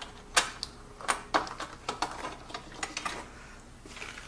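Light, irregular clicks and ticks of small metal bolts being handled and threaded back into their holes by hand, the sharpest click about half a second in.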